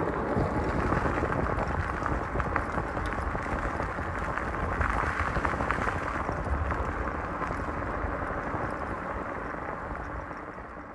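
Wind rushing over the microphone and bicycle tyres rolling on a gravel trail while riding, a steady noise with small scattered ticks; it fades away near the end.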